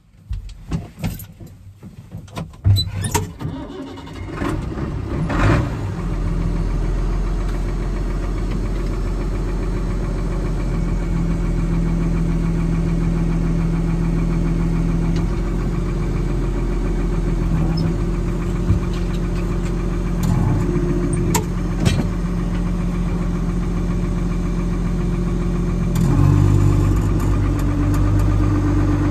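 Ford TW-5 tractor's six-cylinder diesel engine heard from inside the cab, cranking unevenly for several seconds before it catches and settles into a steady idle. Near the end the engine note steps up, as if the throttle is opened slightly.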